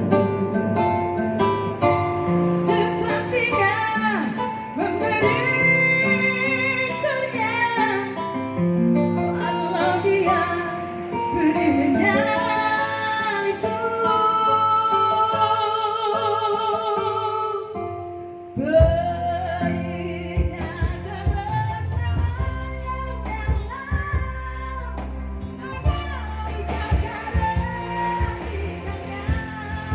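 A pop song with a singer over guitar, played through Yamaha DBR and DSR powered PA speakers to test their sound. About two-thirds of the way through, after a brief dip, a heavier bass line and beat come in.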